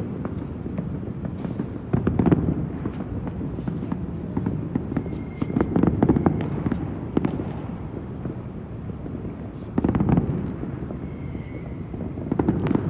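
Fireworks going off across a city, heard from afar: a continuous low rumble full of crackling pops, with louder clusters of booms about every four seconds.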